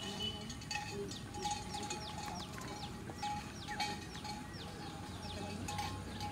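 A bird calling: a run of short, high, falling notes, about three a second, over steady outdoor background.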